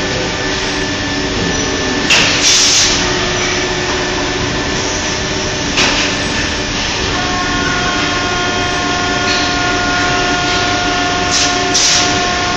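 Steady factory-floor machine noise from running injection-moulding machines and their servo gantry robots. Short bursts of hiss, typical of the robots' pneumatic valves venting air, come about 2 s in, near 6 s and near 11 to 12 s, and from about 7 s a steady whine of several tones joins in.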